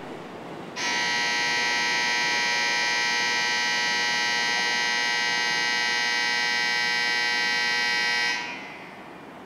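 Shinkansen platform departure bell: an electronic buzzer ringing steadily for about seven seconds, signalling a train's departure. It starts about a second in and cuts off near the end.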